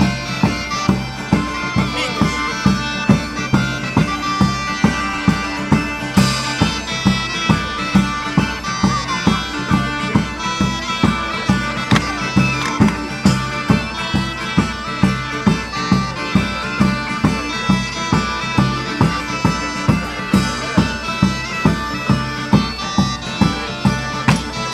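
Bagpipes playing a folk tune over a steady drone, with a drum beating an even pulse about twice a second.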